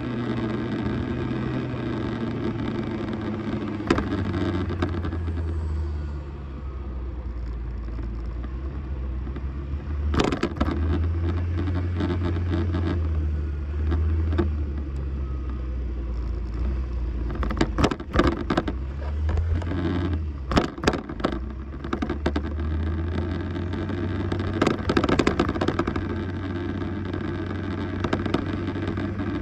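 Arora scooter's engine running while riding in city traffic, with road and wind noise around it; its low hum rises and falls with speed. Sharp knocks and rattles break in several times, clustered in the second half.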